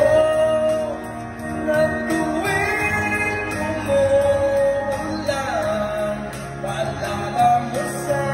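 A man singing into a microphone over a karaoke backing track, with notes held for about a second at a time.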